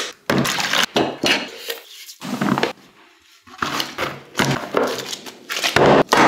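A series of short kitchen handling noises: an eggshell cracking over a plastic bowl, dough being kneaded and pressed in the bowl, then a round metal pan set down on a wooden table with a thunk near the end.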